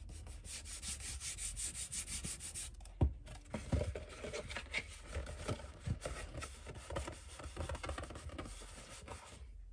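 Hands rubbing patterned paper firmly down onto the side of a cardstock box, a fast run of rubbing strokes. A knock comes about three seconds in, then the paper box is turned and handled, with paper rustling and a few light taps.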